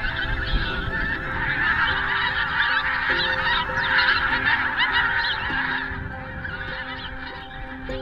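A large flock of geese calling in flight: a dense clamour of many overlapping honking calls, loudest around the middle and easing somewhat near the end.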